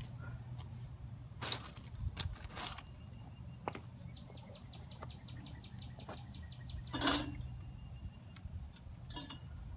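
Outdoor ambience: a steady low hum with scattered light clicks and rustles, and a quick run of evenly spaced high ticks for a few seconds in the middle.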